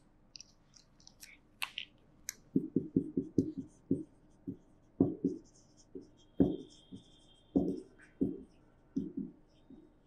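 Marker writing on a whiteboard: a quick run of short strokes from about two and a half seconds in, with a faint squeak in the middle, after a few light clicks.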